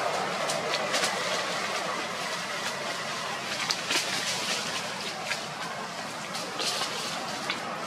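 Dry leaf litter rustling and crackling with a few sharp snaps as a monkey moves across the forest floor, over a steady background hiss.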